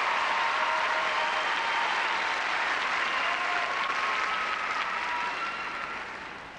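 Large arena audience applauding, the applause dying away near the end.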